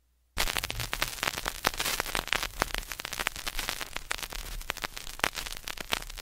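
Surface noise of a 45 rpm vinyl EP played with no music in the groove: dense crackle and pops over hiss and a low hum, starting a moment in.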